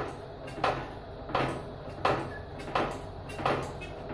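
Hydraulic lifting trolley being pumped up: a sharp clack on each pump stroke, evenly spaced about every 0.7 seconds, each trailing off briefly.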